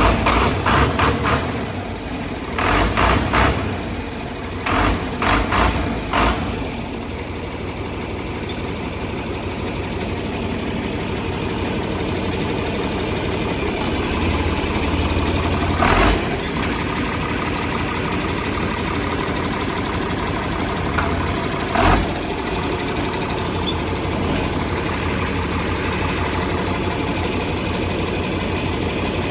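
John Deere 4020 tractor's six-cylinder engine, just started, pulsing unevenly for the first six seconds and then running at a steady idle through a muffler with a few holes in it. Two sharp thumps are heard, about 16 and 22 seconds in.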